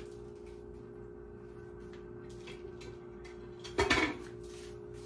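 Kitchenware clattering briefly, as utensils or dishes are handled, about four seconds in, over a steady low hum.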